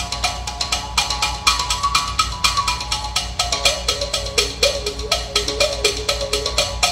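Mouth bow played with one end held in the player's mouth, its strings plucked in a rapid, even rhythm. Over the plucking, a melody of overtones shaped by the mouth rises and falls.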